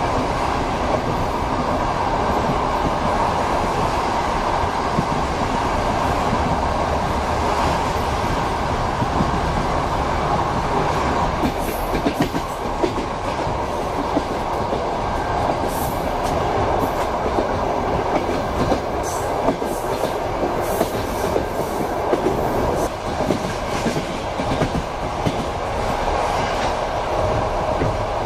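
Passenger train running on the rails, heard from a carriage window: a steady rumble of wheels and running gear, with a run of sharp clicks and clacks from about twelve seconds in.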